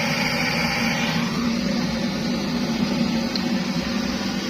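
Kerosene pressure stove burning with a steady hiss; a higher part of the hiss drops away about a second in.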